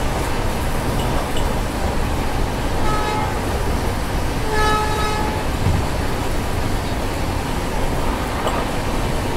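Steady rumble of a moving passenger train, with a short horn toot about three seconds in and a longer one about a second and a half later.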